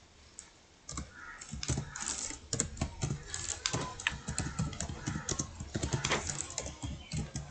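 Typing on a computer keyboard: a run of irregular key clicks that starts about a second in and goes on in uneven bursts.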